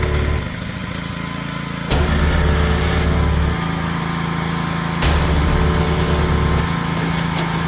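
Gas pressure washer's small engine running steadily under the hiss of the high-pressure water jet spraying pavement. A deeper low rumble cuts in and out every couple of seconds as the pump load changes.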